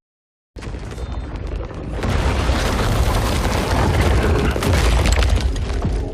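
Film destruction sound effect: a deep, rumbling crash of collapsing rock or structure, with many crackling debris impacts. It starts suddenly about half a second in, swells to full loudness about two seconds in, and begins to die away near the end.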